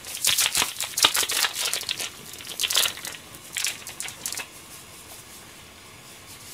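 Plastic food packet crinkling and being torn open by hand, a quick run of crackles that dies away after about four and a half seconds.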